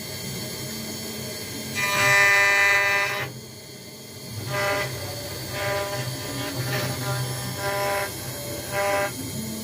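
CNC router engraving machine's axis motors whining in a steady pitched tone that starts and stops in short moves, several times, over a steady low hum from the machine.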